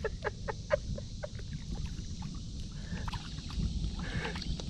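Water sloshing and splashing as a hooked channel catfish is brought in at the bank, in a quick run of short splashes about four a second at first, then scattered ones, over a steady low rumble.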